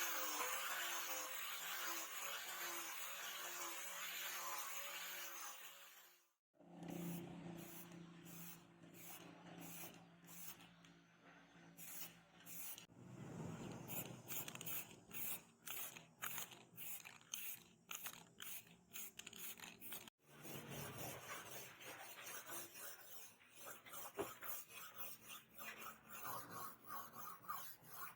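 A small workshop motor runs steadily for the first few seconds. Then, across two cuts, come repeated scraping strokes at about one to two a second, hand work on the blade or sheath.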